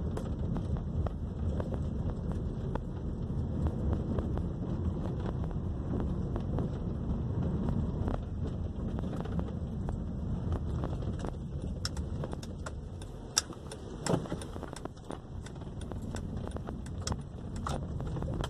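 Inside a 2012 Honda Civic driving over a rough street: steady low road and tyre rumble, with several light clicks and rattles in the second half. There is no knocking from the front suspension, which is quiet after a new engine mount and control arm bushings cured its clunking.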